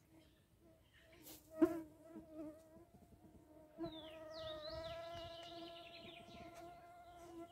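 A flying insect buzzing close by: a steady hum that wavers a little in pitch and grows stronger about halfway through. High bird chirps sound above it, and there is one sharp click about one and a half seconds in.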